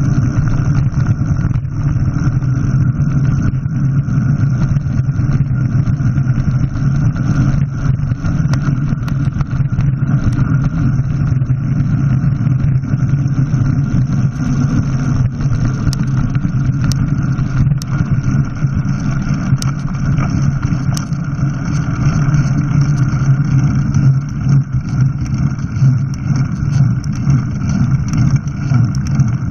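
Steady travel noise from a vehicle moving along a rough track, picked up by a front-mounted camera: a constant low hum and rumble with scattered faint clicks.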